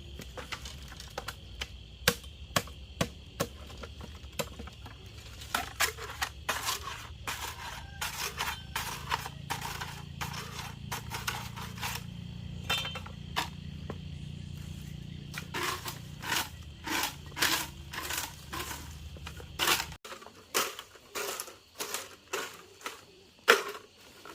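Irregular sharp clicks, knocks and scrapes from manual work, over a low steady hum that cuts off about twenty seconds in.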